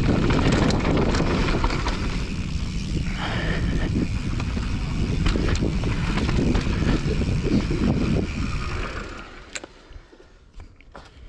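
Mountain bike riding down a dry dirt trail: wind buffeting the camera's microphone over the rumble of knobby tyres on dirt and knocks and rattles from the bike over bumps. It quietens about nine seconds in, leaving a few light clicks and knocks.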